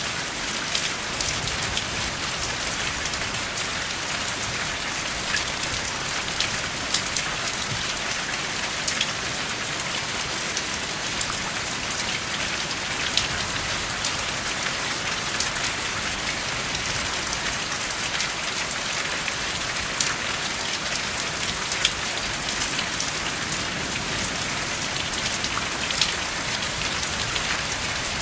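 Steady rain falling: an even hiss with sharp drop ticks scattered through it.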